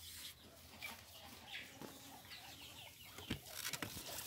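Faint clucking of chickens in the background, with a single knock about three seconds in and a rustle of a handled bundle of grass near the end.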